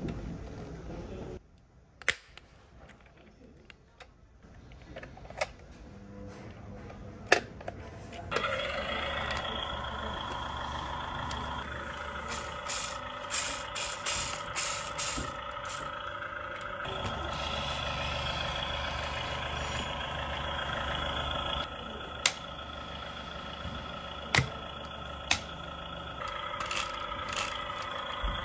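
Scattered plastic clicks and knocks as a toy forage harvester is handled. About eight seconds in, a steady electronic droning with a low rumble starts and runs on, its tone shifting a few times, with more clicks over it.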